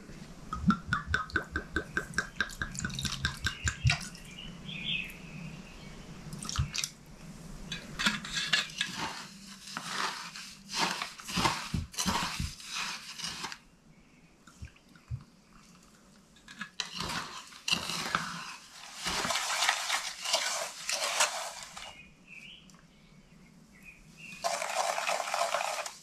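Wooden spoon stirring and scraping brown sugar and liquor around a small metal tin to make a glaze, in repeated bouts with short pauses between them.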